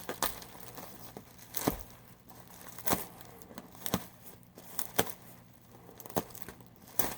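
Packing material crinkling and rustling as a boxed model is unwrapped by hand, with scattered sharp crackles.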